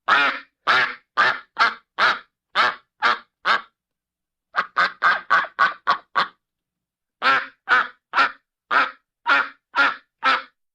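A duck quacking in three runs of loud, repeated quacks, about two a second, separated by short silences. The middle run is quicker.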